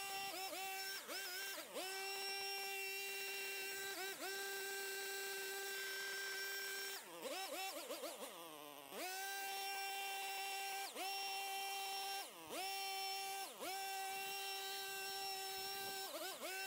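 Handheld leaf blower running at a steady high whine, its pitch dipping and sliding back up every second or two as the throttle is let off and squeezed again, with one longer slowdown and spin-up about eight seconds in. It is blowing dust and chaff off a combine harvester.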